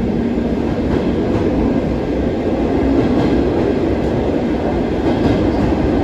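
A passenger railway carriage in motion, heard from inside at its end door: a steady, loud running noise of wheels on the track, with a few faint knocks.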